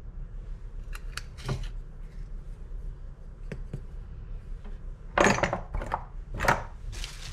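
Small glass spice jars with metal lids knocking and clinking as they are handled in a drawer: a few light taps early on, then two louder short clatters near the end.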